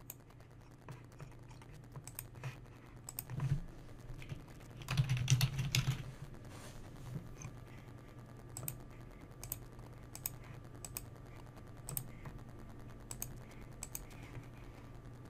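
Typing on a computer keyboard: a quick run of keystrokes about five seconds in, with scattered single key or mouse clicks through the rest.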